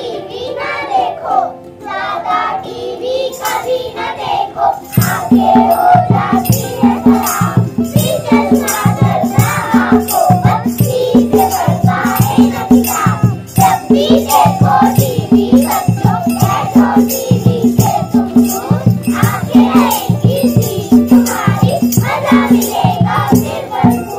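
A group of young children singing a Hindi rhyme in unison. A steady rhythmic backing beat of drum and shaker joins about five seconds in.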